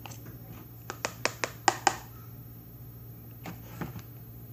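Spoon clicking against a bowl while slime mixture is stirred: a quick run of about six sharp clicks about a second in, then two fainter ones near the end, over a faint steady hum.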